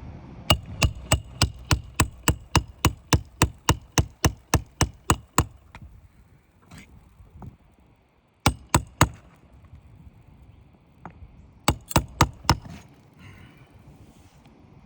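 Hand hammer driving roofing nails through an asphalt shingle: a quick, even run of about eighteen strikes, then three more, then a final burst of five.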